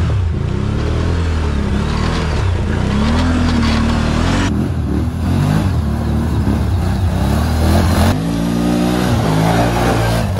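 ATV engines revving up and down under hard off-road riding, in three short clips whose sound changes abruptly about four and a half and eight seconds in.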